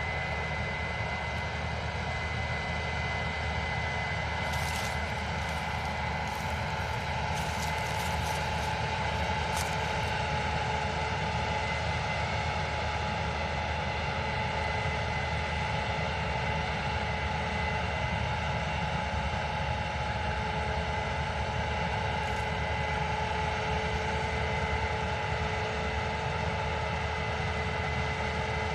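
Case IH combine running steadily while harvesting soybeans: a continuous engine drone with steady, high-pitched machinery whines over it.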